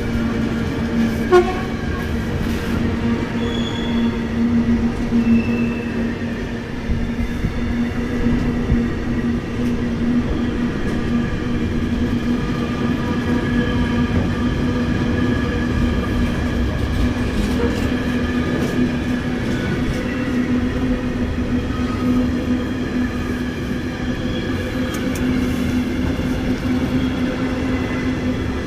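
A train running on the track, a steady rolling rumble with a constant humming tone, and a short squeak about a second in.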